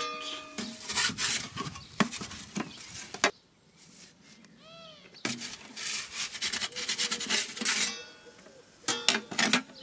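Aluminium pizza peel scraping across the stone baking board of an Ooni Fyra 12 pizza oven as a pizza is drawn out and then slid back in. The scraping comes in two long stretches with a short quiet spell between them, and the first touch of the peel gives a brief metallic ring.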